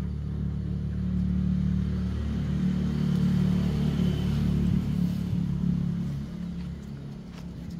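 Engine of a passing motor vehicle, a low steady drone that grows louder over several seconds and fades away about six and a half seconds in.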